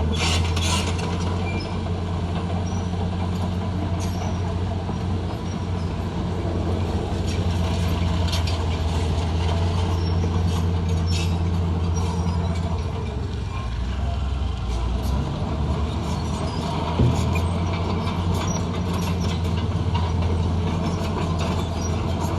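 Heavy diesel engine of an earthmoving machine running steadily under load, its note dropping briefly about two-thirds of the way through before coming back up. There is a single sharp knock a little later.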